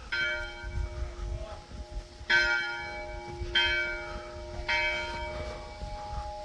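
A church bell tolling: four strikes, the first alone and the last three about a second apart, each leaving a long ringing hum. A low rumble of wind on the microphone runs underneath.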